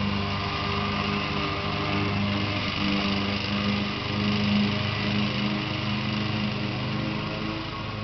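An engine running steadily at a constant speed, a low hum with a fainter whine above it.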